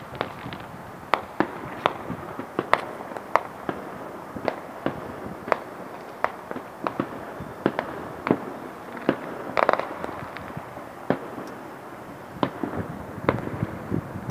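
Fireworks and firecrackers going off, sharp bangs at irregular intervals, about two a second, over a steady background hiss. About ten seconds in, a longer run of crackling bangs.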